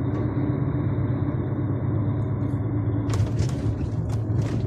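DAF truck's diesel engine running steadily at low speed, a low rumble, with a few brief clicks or knocks about three seconds in and near the end.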